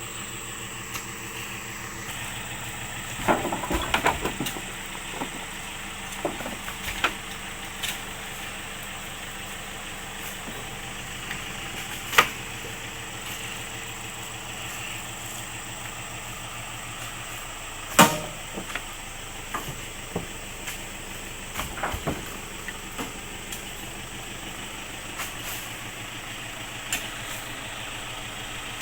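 Vehicle engine idling steadily, with scattered sharp knocks and clanks, the loudest a little after halfway through.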